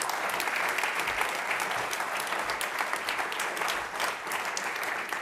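Audience applauding steadily, a roomful of people clapping at once.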